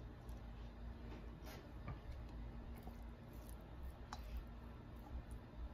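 A few faint clicks of a plastic spatula against a glass bowl as cooked noodles are tossed, over a low steady hum.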